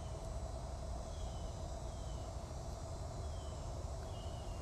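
Outdoor background noise: a low, uneven rumble with faint short high chirps, each falling slightly in pitch, recurring about once a second.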